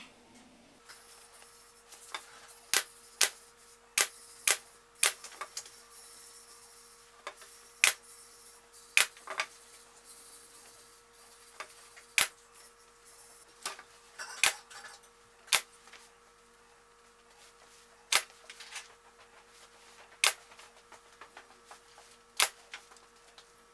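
Staple gun firing single staples into a wooden carriage-top bow, fastening a fabric headliner: about sixteen sharp shots at uneven spacing, some half a second apart, others several seconds.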